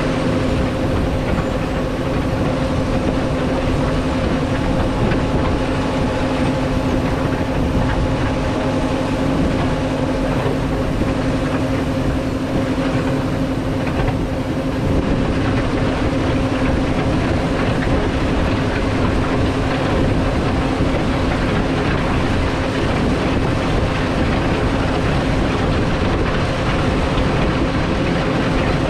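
Caterpillar 140 motor grader moving along a gravel road while blading. Its diesel engine runs with a steady drone under the noise of the moldboard blade scraping and spreading gravel.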